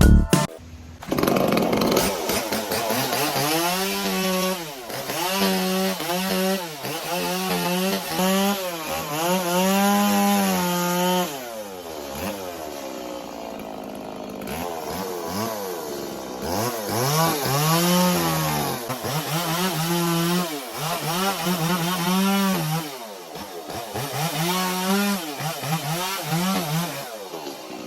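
Stihl chainsaw carving into wood, its engine revving up and bogging down again and again as the chain bites and eases off. There is a quieter spell partway through.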